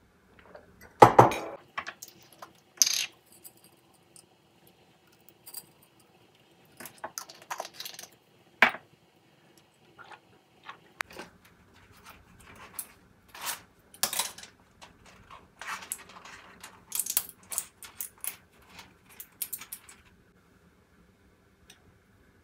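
Small hard objects clinking, clattering and knocking on and off, like dishes and utensils being handled, with the loudest knock about a second in, over a faint steady hum.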